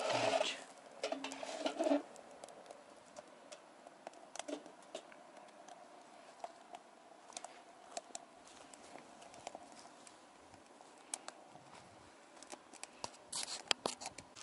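Twigs burning in a small metal camp stove, crackling with scattered sharp pops and a cluster of them near the end. Louder clatter from handling in the first two seconds.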